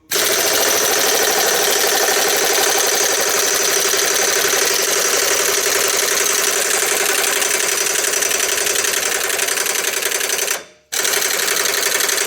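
Impact gun hammering away at a rusted exhaust flange nut soaked with penetrating spray, in one long steady run with a brief let-off near the end before it goes again; the nut is not breaking loose.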